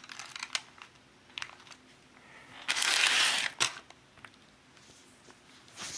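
Handling noise: a few light clicks and taps, then about a second of loud crinkling rustle, like clear plastic sheeting being crumpled by hand as a plastic model car is moved about.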